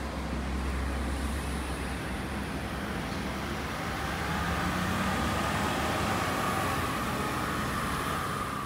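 Street traffic: a steady low engine hum for the first couple of seconds, then a vehicle swelling up and going by.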